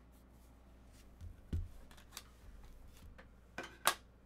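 Trading cards and a hard plastic graded-card slab being handled and set down on a desk mat: scattered light clicks and taps, a soft low thump about a second and a half in, and the loudest clicks near the end.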